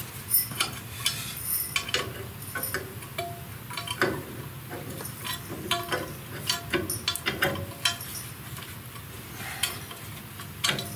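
Irregular metallic clinks, taps and light knocks of hand tools and metal parts, some ringing briefly, as a cover is fitted back onto a reaper-binder.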